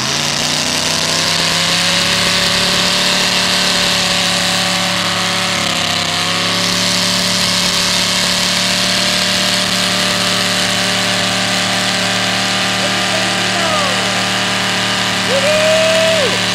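Lifted mud truck's engine held at high, steady revs in a smoky burnout, its tires spinning against the ground while the truck is braced against a bulldozer blade. A few spectators whoop a little before the end.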